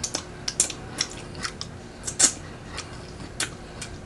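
Close-up eating sounds: scattered short, sharp mouth clicks and chewing, the loudest click about two seconds in.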